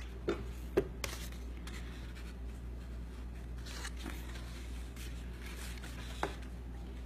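Cardstock paper petals rustling and scraping under the fingers as they are handled and woven over and under, with a few short crisp clicks. A steady low hum runs underneath.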